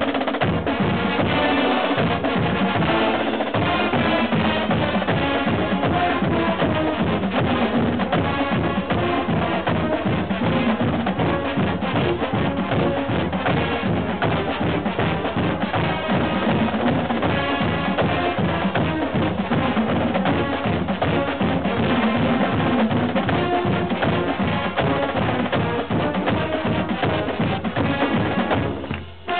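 College marching band playing: a drumline of marching snare drums and bass drums keeps a steady beat under sousaphones and brass. The sound briefly drops away near the end.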